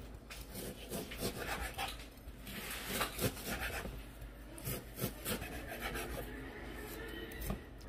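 Chef's knife cutting through red-marinated chicken on a wooden cutting board: irregular scraping strokes of the blade through meat and skin, with taps as it meets the board.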